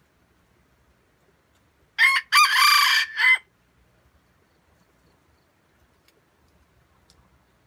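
Red junglefowl cock crowing once, about two seconds in: a short first note, a longer middle note and a clipped final note, about a second and a half in all.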